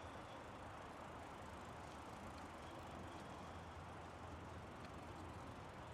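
Faint, steady rolling noise of a touring bicycle riding along a paved path.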